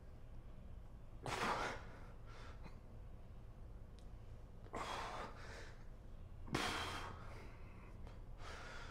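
A man's forceful breaths while straining to hold flexing poses: three sharp, noisy exhalations, the first about a second in and the last two close together near the end, over a low room hum.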